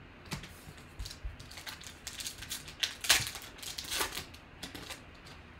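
Foil wrapper of a trading card pack being torn open and crinkled: a run of crackling rustles, loudest about three seconds in.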